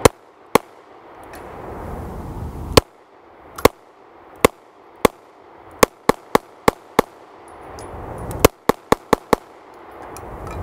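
Beretta APX 9mm pistol firing about sixteen shots: single shots a second or so apart at first, then two quick strings of about five shots each, a little past six seconds in and near the end. Some reports are much louder than others.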